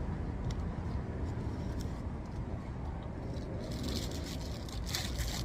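Steady low rumble of a vehicle, with light crinkling and rustling from about three and a half seconds in.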